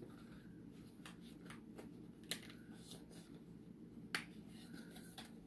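A few faint clicks and taps from makeup packaging being handled, the sharpest about four seconds in.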